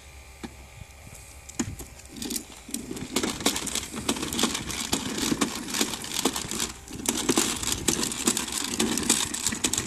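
A plastic toy bubble lawn mower pushed across concrete, its hard plastic wheels and bubble mechanism clattering and rattling as it rolls. The rattle starts about two seconds in and lets up briefly partway through.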